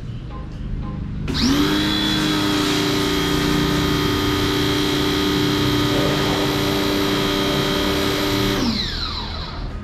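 A small electric motor whines up to speed about a second in, runs at a steady pitch for about seven seconds, then winds down and stops near the end.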